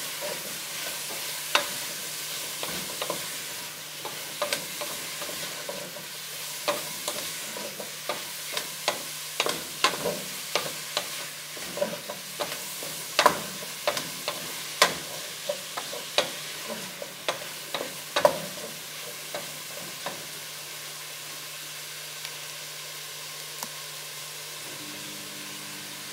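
Chopped onions sizzling in olive oil in a pot while a wooden spoon stirs them, knocking and scraping against the pot many times. The knocks thin out and stop about three quarters of the way through, leaving the steady sizzle.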